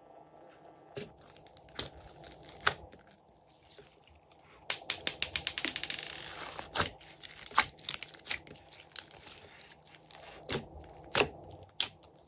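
Glossy slime being folded and squeezed by hand in a glass dish, giving sharp wet pops and clicks. There are a few single pops, then a quick crackling run of pops about five seconds in, then more single pops near the end.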